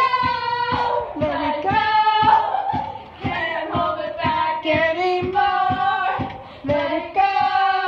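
Two teenagers singing together from inside a concrete septic tank, with long held notes and glides between them.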